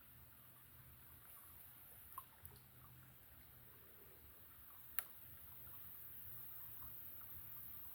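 Near silence: a faint low hum with a few small ticks, and one sharp click about five seconds in.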